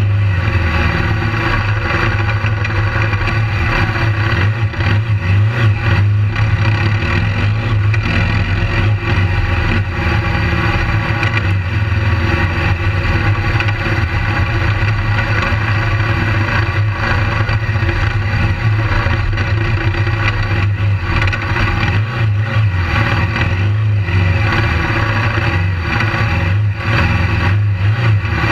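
Engine of a BMW GS adventure motorcycle, heard close from the bike itself, running steadily with no big revs while riding a dirt track.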